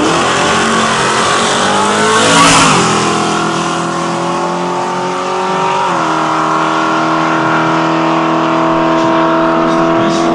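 Race pickup truck's engine at full throttle on a drag-strip pass, revs climbing hard. It is loudest as the truck goes by about two and a half seconds in, where the pitch falls. The pitch drops sharply again at a gear change about six seconds in, then climbs slowly as the truck pulls away.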